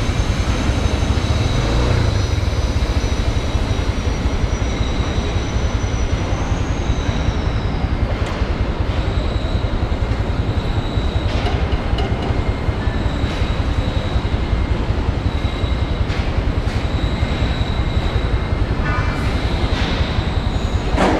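Modenas GT128 motorcycle engine running as the bike rolls slowly, heard as a steady low rumble close to the mic with a faint high whine over it.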